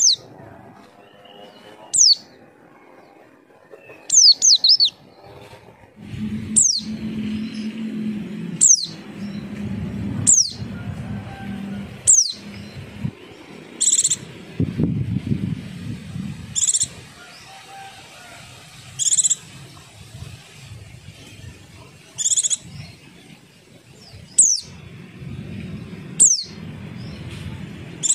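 White-eye (pleci) calling: sharp, high notes that fall quickly in pitch, repeating about every two seconds, mixed with short high chips every two to three seconds in the second half, over a low background hum.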